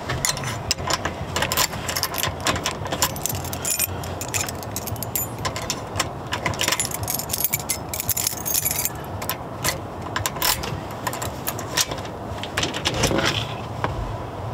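Keys jangling and clinking as they are handled at a door's deadbolt: many small sharp metallic clicks that come and go with short pauses.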